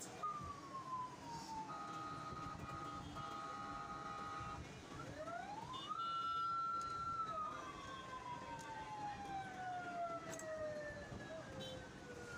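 A siren wailing. About five seconds in it rises slowly in pitch, holds briefly, then falls slowly over several seconds, with other sliding and steady tones overlapping it.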